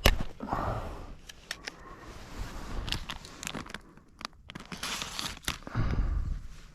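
Snack packaging crinkling as it is handled and torn open: a sharp crackle at the start, then irregular crinkles and rustles.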